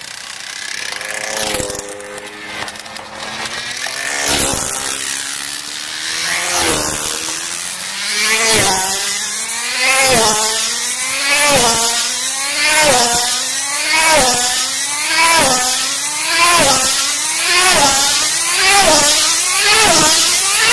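Nitro-fuelled tether car's small two-stroke glow engine running flat out around a circular track. Its high whine swells and drops in pitch each time it passes, at first every two to three seconds and by the end about once a second as the car speeds up.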